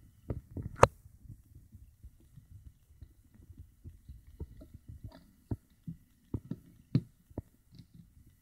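Handling noise: scattered soft knocks and clicks over a low rumble, with a sharp click about a second in and another near seven seconds.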